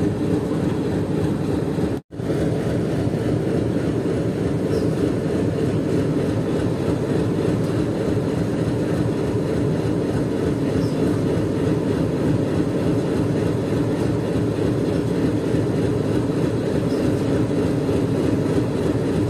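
A diesel locomotive's engine idling steadily at close range, with a low, even hum. The sound cuts out for an instant about two seconds in.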